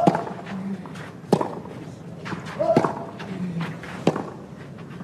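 Tennis rally on a clay court: four racket strikes on the ball, about a second and a half apart, alternating between the two players. A short grunt comes with two of the shots.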